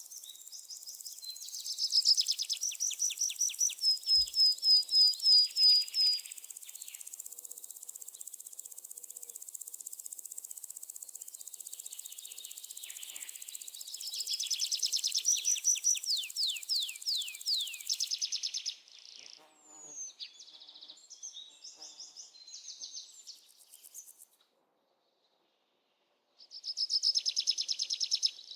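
Birds singing in fast series of repeated high chirps and trills over a steady high insect hiss. The hiss stops about two-thirds of the way in, and the sound drops out to silence for about two seconds before the chirping resumes.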